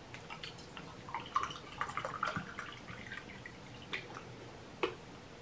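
Water poured from a plastic bottle into a stemmed glass, splashing and trickling faintly, with a couple of light clicks near the end.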